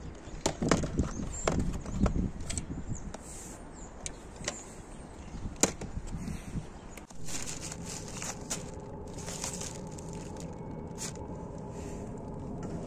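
Rummaging through junk in a dumpster: a hard plastic toy gun and wooden boards handled, with many sharp clicks and knocks. About seven seconds in the sound changes to a fainter steady hum with a few scattered clicks and rustles.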